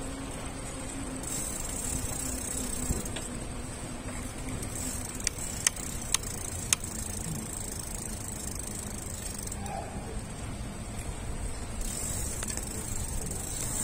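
A bicycle rolling along a paved street: a steady low rumble of tyres and wind, with a fast, high freewheel ticking that comes and goes in stretches, and a few sharp clicks in the middle.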